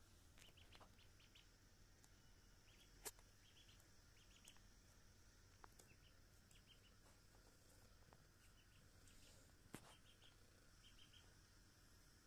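A duckling peeping faintly in quick runs of three or four high peeps, about one run a second. Two sharp clicks stand out, one about three seconds in and one near ten seconds.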